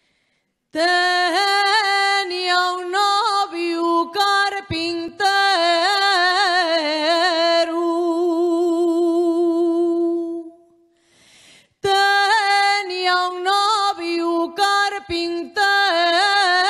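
A woman singing an Asturian tonada unaccompanied, in slow, richly ornamented phrases. About a second in the voice enters, holds one long note with vibrato, breaks off for a breath around ten seconds in, then takes up the melody again.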